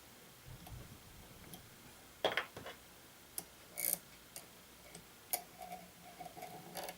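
Scattered light clicks and taps of small metal parts being handled during the teardown of an electric metronome, unevenly spaced. A faint hum comes in near the end.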